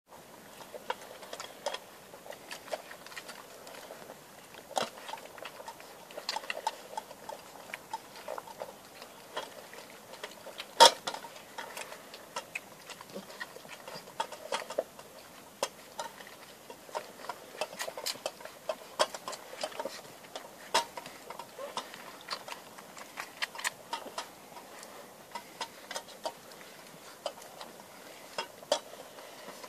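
Six-week-old Irish wolfhound puppies feeding, some suckling at their mother and some eating from a metal bowl: an irregular patter of small clicks and smacks. One louder click comes about eleven seconds in.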